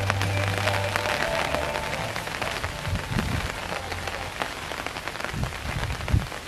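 Steady rain falling, with many sharp drop ticks, likely on the umbrellas. A few dull low thumps come in the second half.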